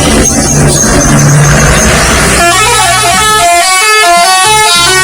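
Indonesian bus 'telolet' horn, a set of electrically switched horn trumpets, playing a quick stepping tune of several notes at once. It starts about halfway through, after a couple of seconds of loud noisy street and engine sound.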